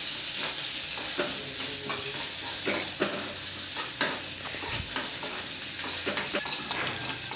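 Chopped onions and curry leaves sizzling in hot coconut oil in a steel kadai, while they are stirred: a steady frying hiss with the spoon scraping and clicking against the pan at irregular moments.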